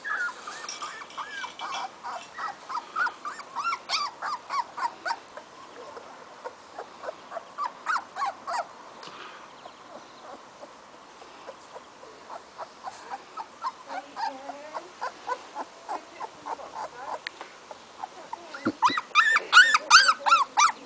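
Young Weimaraner puppy whimpering and squealing in short, high cries that come in bouts, with the loudest and fastest run near the end.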